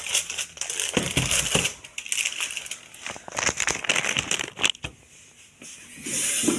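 Clear plastic packaging crinkling and rustling as it is handled and pulled off a laptop, with irregular crackles. It eases off briefly about five seconds in, then rustles again.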